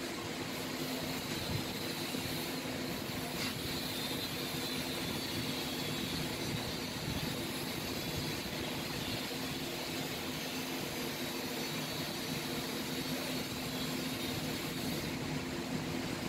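Steady background drone with a hiss, unchanging throughout, carrying a low hum and a faint high whine.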